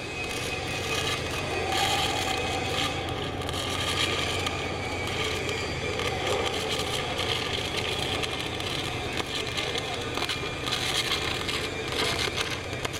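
Stick welding arc on aluminium plate, crackling steadily as the electrode lays the first (root) pass of a flat fillet weld, over a steady low hum.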